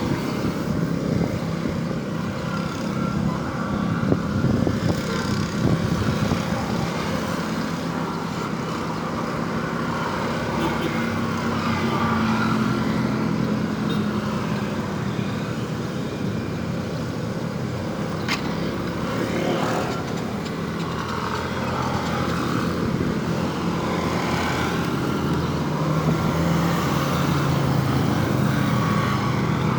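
Road traffic: cars and motorcycles driving past with their engines running, a continuous rise and fall of passing vehicles.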